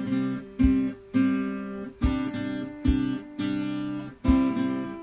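Background music: an acoustic guitar strumming chords, each strum ringing out before the next, roughly one or two a second.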